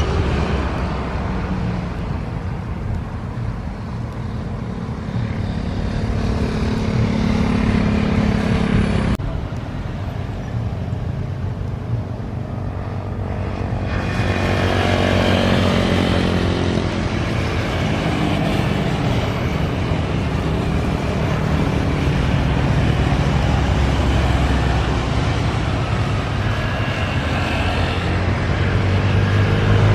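Road traffic passing close by: car and motorcycle engines with tyre noise, and a steady low engine hum underneath. About 15 seconds in, a passing vehicle's engine pitch falls as it goes by. The sound changes abruptly about 9 and 14 seconds in.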